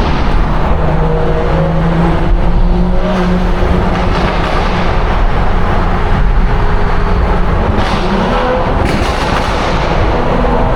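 BMW 340i's tuned turbocharged straight-six with a valved performance exhaust, running under way in a road tunnel, its engine note rising and falling slightly over a steady road and tunnel rumble.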